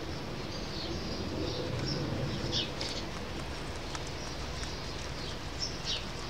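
Outdoor ambience: a steady low rumble with a few short, high bird chirps around the middle and again near the end.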